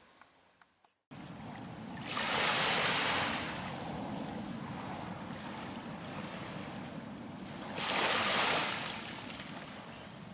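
Waves breaking on a beach: a steady wash of surf that starts abruptly about a second in, with two louder rushes of breaking waves some six seconds apart.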